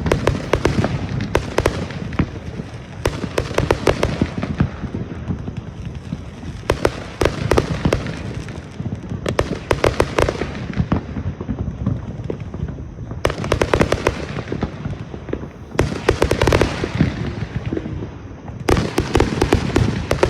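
Consumer fireworks going off in a rapid barrage: dense volleys of bangs and crackling that come in waves of a few seconds each, separated by short lulls.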